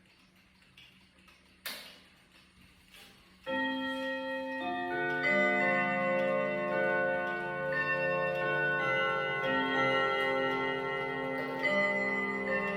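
ODO 30/10 chiming clock with ten gong rods struck by ten hammers. After a few quiet seconds with faint clicks, the chime starts suddenly about three and a half seconds in and plays a melody of long-ringing, overlapping rod tones.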